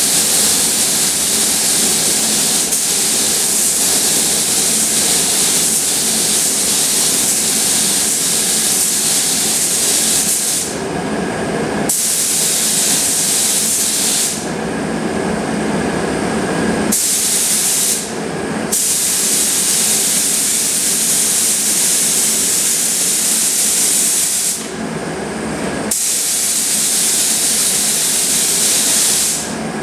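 Compressed-air spray gun hissing as it sprays primer, the hiss cutting out briefly several times as the trigger is let off, while a lower steady noise carries on underneath.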